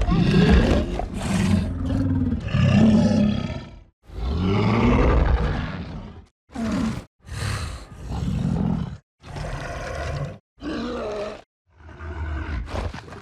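Skar King, the giant ape, giving a series of designed creature roars and growls, about eight separate calls with short silences between them. The first runs about four seconds and the later ones are shorter, some bending in pitch.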